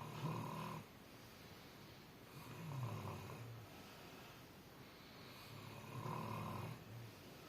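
Snoring, three snores about three seconds apart, each lasting about a second.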